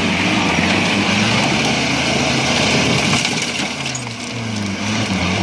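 A modified flat-fender jeep's engine revving up and down under load as it crawls through a rutted gravel mound. Its tyres crunch over the loose stones and throw some of them, with a few sharp clicks.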